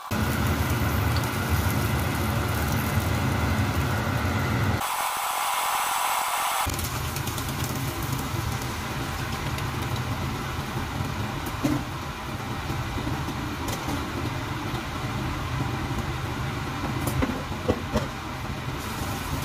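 Frying in a pan on the stove: an even sizzling hiss over a steady low mechanical hum. About five seconds in, the hum drops out for a couple of seconds and the hiss sounds brighter.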